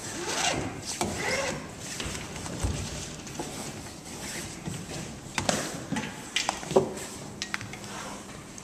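Hands working lacing rope against a vinyl catamaran trampoline and its aluminium bar: rustling, rubbing and scraping, with a few sharp clicks about five to seven seconds in.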